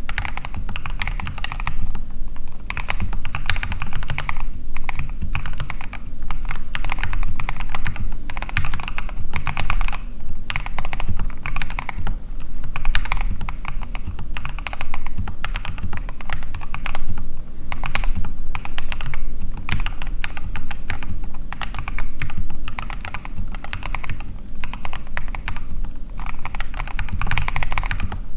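Typing on a custom mechanical keyboard with lubed Gateron Clear linear switches, a fast, dense run of keystrokes in bursts with short lulls between them.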